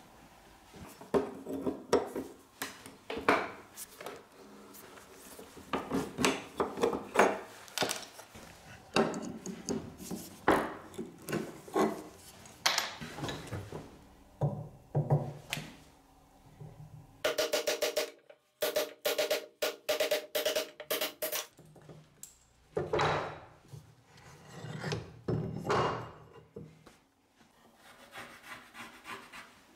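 Hand-tool work on an old splitting axe: a long series of rubbing, scraping strokes and knocks on wood and steel, with a fast, even run of strokes in the middle, as the worn handle is worked out of the axe head clamped in a vise.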